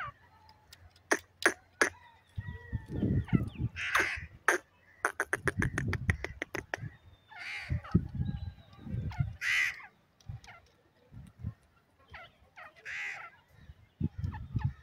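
Bird calls: four loud, harsh calls a few seconds apart, with a run of rapid clicks and low pulsing sounds between them.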